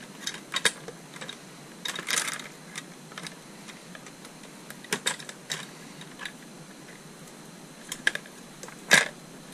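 Clear plastic windscreen and its metal mounting hardware being handled and fitted against a motorcycle headlight: scattered light clicks and taps at irregular intervals, with a sharper click near the end.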